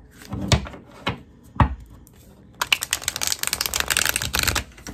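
Tarot deck handled over a wooden table: three sharp knocks about half a second apart, then a riffle shuffle, a fast run of card flicks lasting about two seconds.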